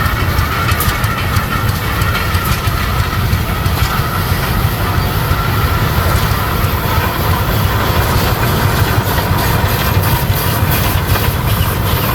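Fairbanks-Morse 30-60 oil tractor's big slow-turning engine running as it passes close by, a loud steady low rumble.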